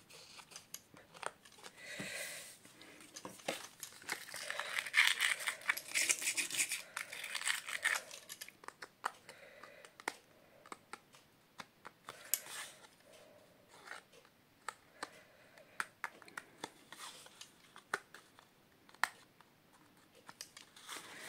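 Paper handling: die-cut cardstock circles rustling and scraping on a craft mat, with a denser stretch of rustling about two to eight seconds in, and scattered small clicks and taps as a pointed tool pokes the tiny cut-out bits from their lace edges.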